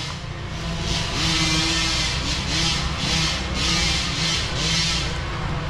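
Footsteps crunching through dry leaves, nearly two steps a second, starting about a second in. Small dirt bike engines buzz faintly underneath, rising and falling.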